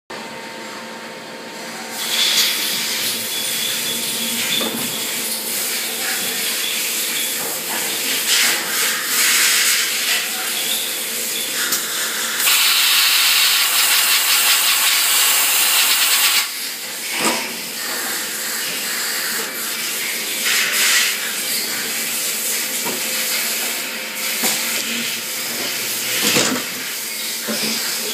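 Industrial machinery running: a steady hum of motors under continuous hissing, with a louder burst of hiss lasting about four seconds midway and a few short knocks.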